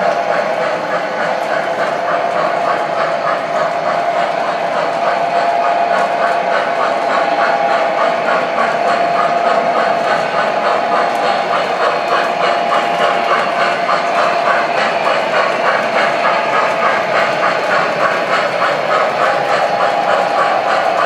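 MTH O-scale model trains running on the layout's track: a steady whirring hum of motors and gears with a fast rhythmic clatter of wheels over the rails.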